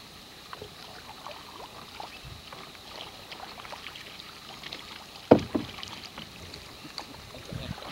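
Canoe paddling: paddle strokes in the water with many small scattered clicks and drips, and one sharp knock about five seconds in.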